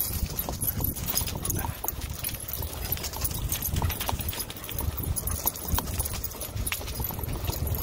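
Two dogs running on grass: the rhythmic thud of their galloping paws and the clicking of leash clips and tags, over a low rumble.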